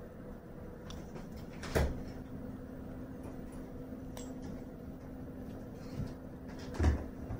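Two dull thumps, about two seconds in and near the end, over a steady low hum, with a few faint clicks between.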